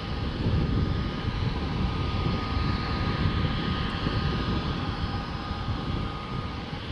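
Airbus A320neo's CFM LEAP-1A turbofan engines at taxi power as the jet taxis toward the microphone: a steady low rumble with a steady high whine that fades out near the end.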